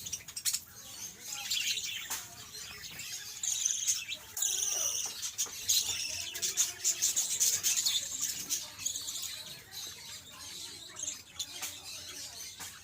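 Parrots chirping and calling in quick high-pitched notes, busiest from about a second and a half to eight seconds in, with scattered short clicks.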